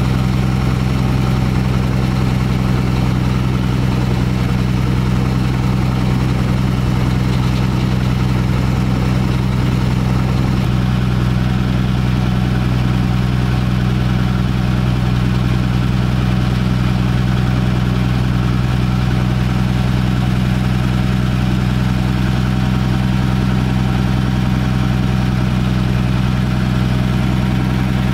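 GE 25-ton diesel locomotive's engine running steadily while it moves along the track, heard close up from on board. It makes a constant low drone.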